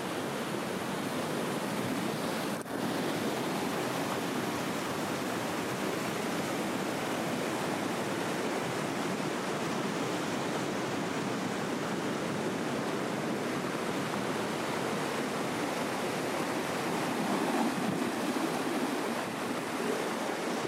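Steady rush of fast-flowing water, a little louder near the end.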